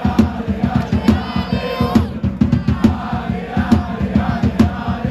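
A large crowd of football ultras chanting in unison, with drums beating throughout.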